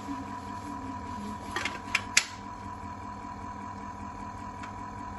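Electric chocolate fountain running: a steady small-motor hum as it drives the melted chocolate up and over its tiers. A few sharp clicks come about two seconds in.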